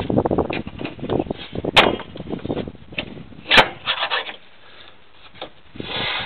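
Hand work on car parts: tools and metal hardware rattling, scraping and clicking, with two sharp knocks, the first about two seconds in and the second about a second and a half later.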